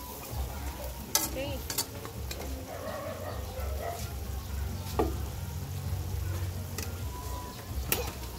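Pork hocks and potatoes being stirred in a stainless steel pan with a metal utensil, which clinks sharply against the pan about four times. A low steady hum runs underneath.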